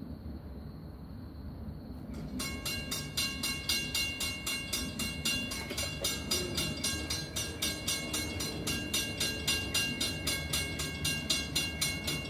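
A railroad bell starts ringing about two seconds in, with rapid, evenly spaced strikes that keep going, over a low rumble from an approaching train.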